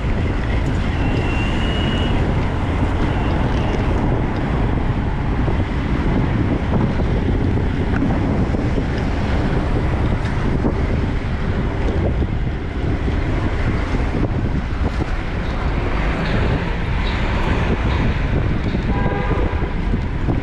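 Steady wind rushing over a body-mounted camera microphone while riding a fixed-gear track bike, with road and traffic noise underneath.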